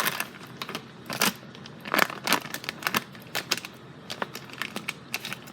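Knife cutting a brick of Velveeta cheese into cubes, the blade knocking down on the cutting surface in irregular taps, a few of them louder.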